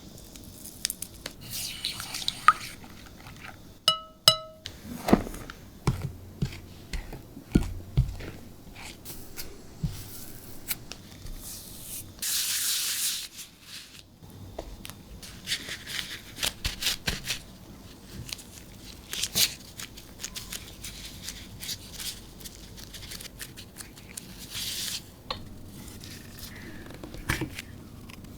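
Kitchen baking-prep handling sounds: scattered knocks and clinks of utensils and containers and rustling of packaging. A short electronic beep comes about four seconds in, and a hiss lasting about two seconds comes around the middle.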